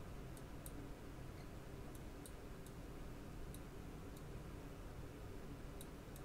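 Faint, irregular clicking of a computer mouse, about ten clicks spread unevenly, over a low steady background hum.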